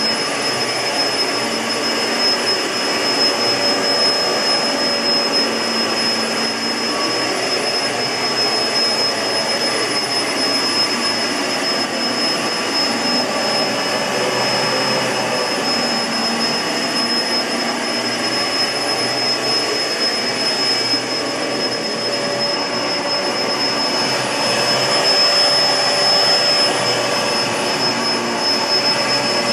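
Kenmore CrossOver Max bagless upright vacuum cleaner running steadily, its blower motor giving a constant rush of air with a steady high whine over it.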